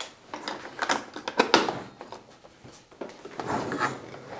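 Irregular light clicks and knocks from hands handling the diesel heater toolbox and its controller cable, coming in two clusters with a short lull between them.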